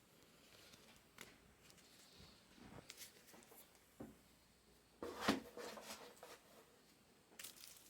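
Faint handling of trading-card boxes, packs and cards: scattered light clicks and rustles, with the loudest rustle about five seconds in.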